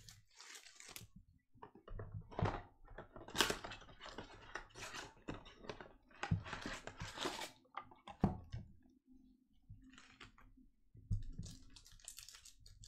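Plastic shrink-wrap crinkling and a cardboard Panini Contenders Football blaster box being torn open, then the wrapped card packs inside handled: irregular rustles, crackles and taps.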